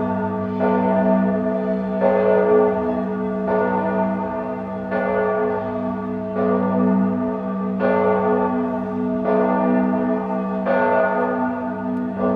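Church bell tolling, a new stroke about every second and a half, each stroke ringing on into the next with a steady hum beneath.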